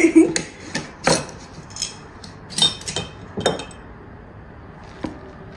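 Scattered sharp clinks and knocks of kitchenware, utensils and dishes against glass and hard surfaces: about eight in the first three and a half seconds, then one more near the end.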